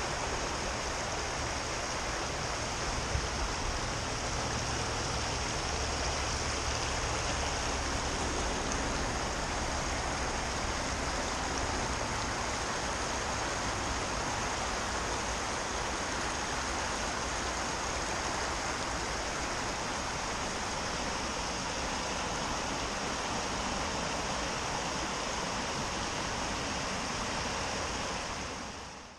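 Water rushing over a small river weir: a steady, unbroken noise of running water that fades out near the end.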